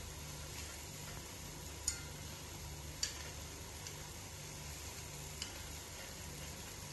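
Vadas deep-frying in hot oil in an iron kadai, a steady faint sizzle, with a steel spoon clinking sharply against the pan twice, about two and three seconds in, and once more lightly later, as the fritters are turned.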